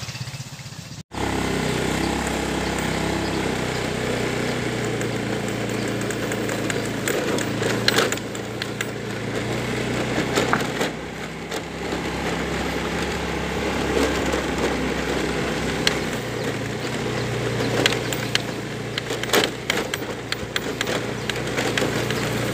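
Small motorcycle engine running steadily while riding along a bumpy dirt path, starting about a second in, with wind and road noise and a few sharp knocks from the bumps.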